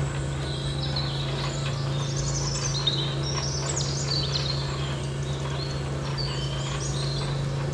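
Small birds chirping repeatedly, over a steady low hum.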